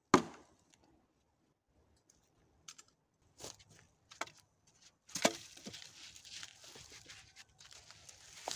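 A sharp thump right at the start, a few scattered clicks, then from about five seconds in a continuous crackling rustle of dry pine needles and twigs being scraped and pulled up by gloved hands.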